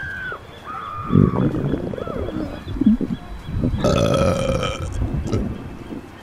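A woman's long, drawn-out belch, starting about four seconds in and lasting over a second. Low rumbling comes before it.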